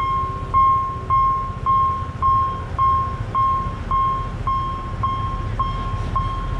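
Railway level-crossing warning bell ringing: single electronic dings repeated evenly, about two a second, signalling an approaching train. A steady low rumble runs underneath.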